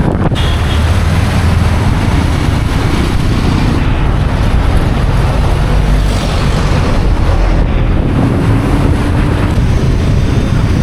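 Steady wind buffeting the microphone over the running engine and road noise of a moving vehicle.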